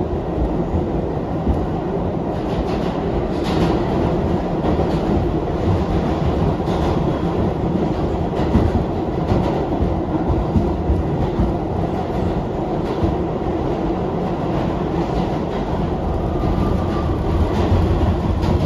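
R62A subway train running along the track, heard from on board: a steady rumble of wheels on rail, with occasional clacks over rail joints.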